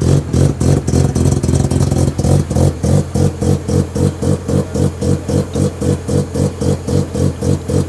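Mazda RX-7 FD3S turbocharged 13B twin-rotor engine idling with a choppy, pulsing beat, about three pulses a second at a steady pitch.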